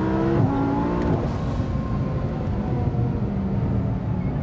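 Twin-turbo 5.2-litre V10 of an Audi R8 at full throttle, heard from inside the cabin. In the first second its pitch climbs and drops sharply twice with quick upshifts, then it runs lower and steadier.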